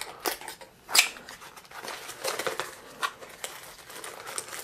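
A small cardboard box being worked open by hand: scraping and crinkling of cardboard as the end flap is pulled, with one louder scrape about a second in.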